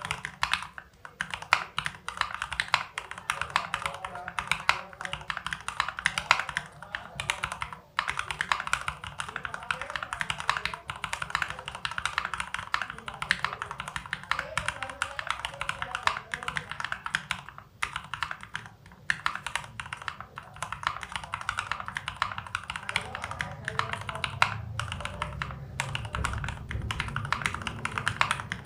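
Fast, continuous typing on a mechanical keyboard: an AKKO 3098B with lubed and filmed Gateron Pro Milky Yellow linear switches under Ajazz Peace Kitty keycaps, giving a deep, muffled clack. The stream of keystrokes pauses briefly a few times.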